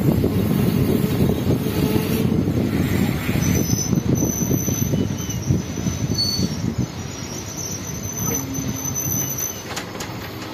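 A passenger train's coach wheels rumbling and rattling over the rails, heard from an open coach door, with thin, high wheel squeals from about three and a half seconds in. The noise slowly grows quieter toward the end.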